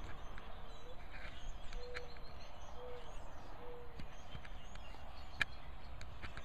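Quiet outdoor ambience: a steady low background noise with faint, scattered distant bird chirps and a few short, low notes in the first four seconds. One sharp click about five and a half seconds in.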